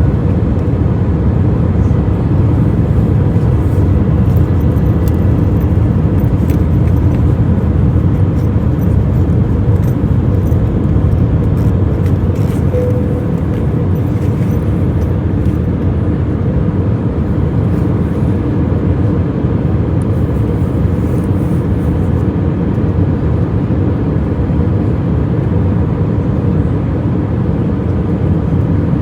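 Steady airplane cabin noise in flight, heard from inside near a window: a constant low rumble and rush with faint steady hums, unchanging throughout.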